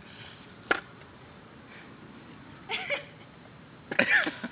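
A man's voice making two short, wavering vocal sounds with no clear words, about three seconds in and again near the end, with a single click under a second in.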